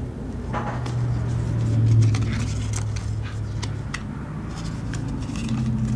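Paper and card hang tags being handled: light crinkling and small scattered clicks, over a steady low hum that swells about two seconds in.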